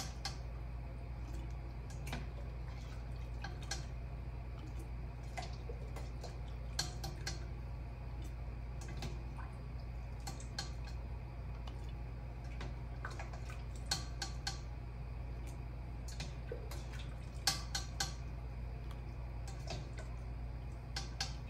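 Slotted spoon scraping and clinking in a stainless steel pot while chunks of chicken and pineapple with dripping broth are dropped through a plastic canning funnel into a glass jar: scattered light clicks and drips, a brief cluster of them near the end, over a steady low hum.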